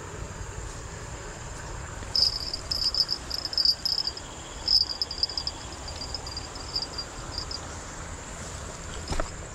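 Insects chirping in bursts of rapid high trills for several seconds, over a steady high-pitched insect drone and low outdoor background noise; a single sharp click near the end.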